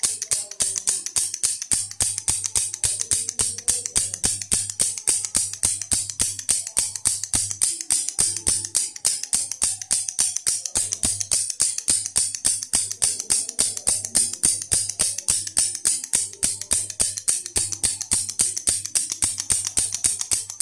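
Toy baby rattle shaken in a steady rhythm, about four bright rattles a second, over a faint tune with a soft low beat.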